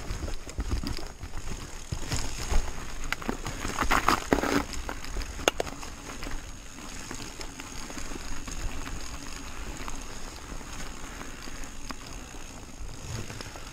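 Upgraded 2014 Trek Fuel EX 7 29er mountain bike rolling over rough dirt, snow and frozen gravel: steady tyre noise with small rattles and knocks from the bike. A louder stretch of crunching comes about four seconds in, and a sharp click about five and a half seconds in.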